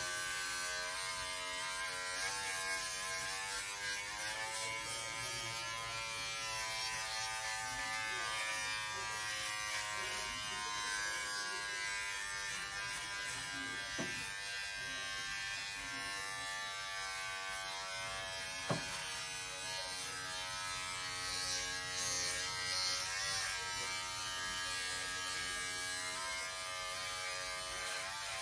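Braun 6-in-1 electric shaver running in use for a quick clean-up, buzzing steadily with its pitch dipping and rising now and then. Two short clicks come about halfway through.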